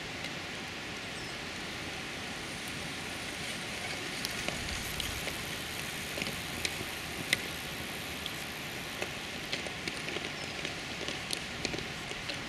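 Steady outdoor hiss with irregular sharp ticks scattered through, more of them from about four seconds in.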